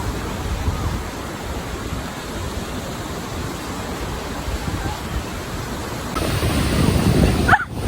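Steady wash of lake waves with wind buffeting the microphone, growing louder about six seconds in.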